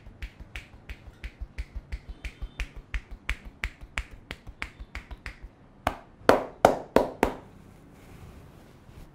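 A barber's hands striking rhythmically during a head massage: sharp slaps at about three a second, then five louder, heavier strikes in quick succession about six seconds in.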